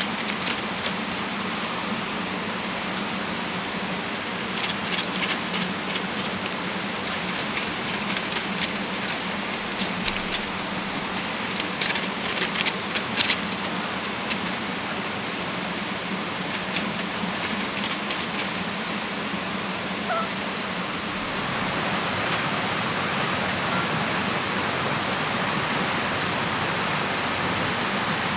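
Steady rush of flowing stream water, with scattered bursts of sharp clicks in the first half. The water grows a little louder about three quarters of the way through.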